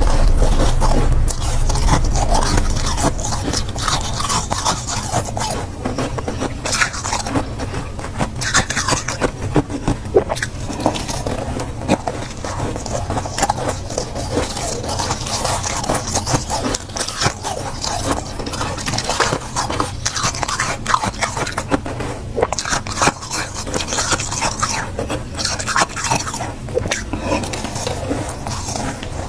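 Close-miked metal spoon scraping through a block of soft, flavoured freezer frost, a dense crisp crackling that goes on without a break, with mouthfuls of the frost being bitten and crunched.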